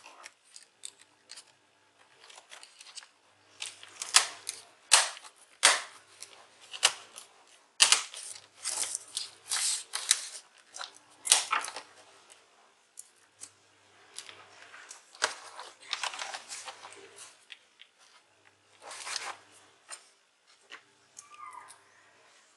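Irregular plastic clicks, taps and short rustling scrapes as a laptop keyboard is handled and pressed into place in a Lenovo IdeaPad 100's case.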